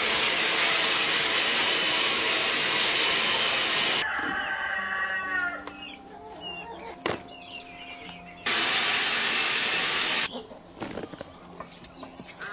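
Loud, even hiss that starts and stops abruptly, filling the first four seconds and returning for about two seconds past the middle. Between the two stretches a rooster crows, and there is one sharp knock.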